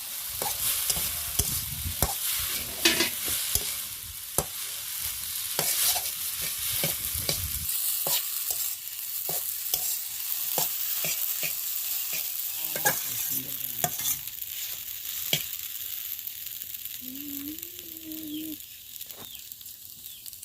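Egg noodles sizzling in a hot frying pan while a spatula stirs them, with many sharp clicks of the spatula against the pan. A low rumble under the sizzle stops about eight seconds in, and the sizzle thins out near the end.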